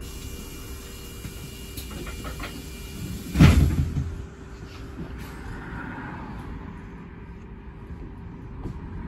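Inside a double-decker bus standing at a stop: a steady low engine hum, and about three and a half seconds in the doors shutting with a loud thud and a short hiss that dies away within a second.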